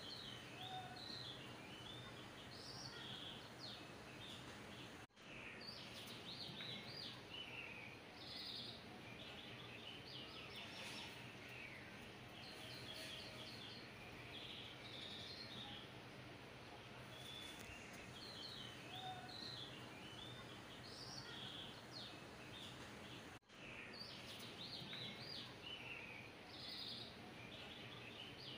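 Faint birdsong: many short chirps and twittering calls over a steady low hiss. It cuts out for an instant twice, about 18 seconds apart.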